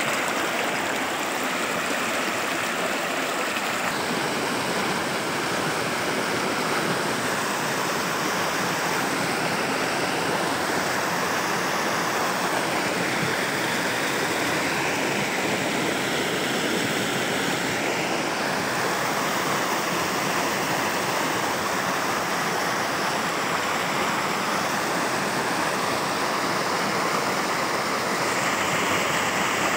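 Steady rushing water, a continuous even noise.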